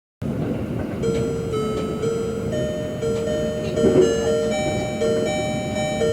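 Japanese train onboard chime: an electronic melody of held, steady notes played over the carriage's public-address system, starting about a second in. The low rumble of the moving train runs underneath.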